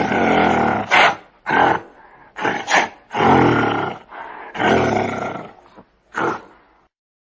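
An animal calling loudly in a series of about eight harsh calls, some long and some short, with brief pauses between them.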